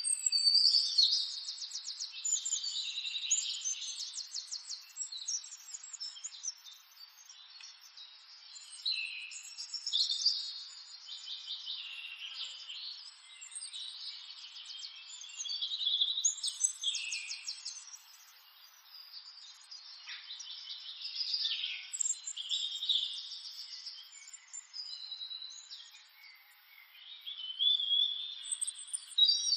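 Songbirds singing and chirping in repeated phrases with fast trills and pitch slides, coming in bouts every few seconds; the loudest bouts come about a second in, at about the middle, and near the end.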